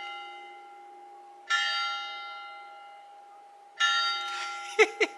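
Church bell tolling: single strikes about a second and a half in and again about two seconds later, each ringing on and fading slowly.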